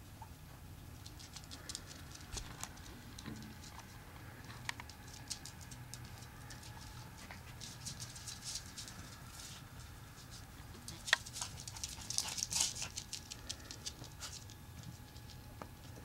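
Havanese puppies' claws clicking and pattering on a tile floor as they scamper and play, in irregular bursts that grow busier in the last third, with one sharper tap a little past the middle.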